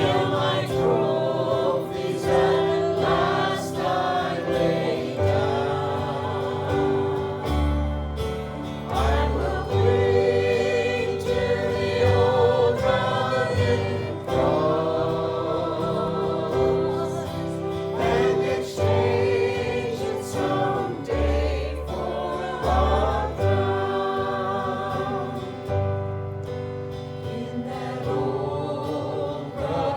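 A group of voices singing a gospel hymn with instrumental accompaniment, bass notes changing under the melody.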